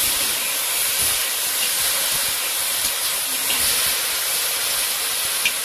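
Small fish frying in a wok, a steady sizzling hiss as the pieces are stirred with a metal spatula, with a few light ticks.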